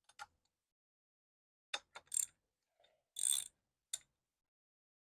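A few short metallic clicks and knocks of tools or parts being handled, with one longer rattle about three seconds in.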